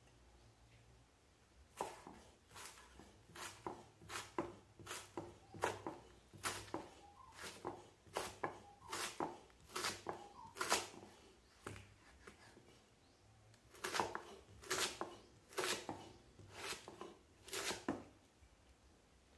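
Large kitchen knife slicing banana blossom into thin shreds on a wooden chopping board: a run of sharp chops, about two a second, starting about two seconds in, with a pause of a couple of seconds about two-thirds of the way through.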